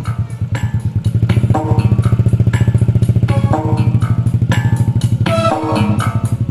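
Dance music played loud through a horeg street sound system of 16 subwoofers during its sound check. A fast rolling bass pulse drives it, with a melody on top, and it is louder and heavier from about a second and a half in until near the end.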